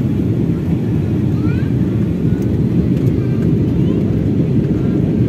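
Steady cabin noise of an Airbus A320 on descent for landing: an even, deep rumble of engines and airflow, heard from inside the cabin at a window seat.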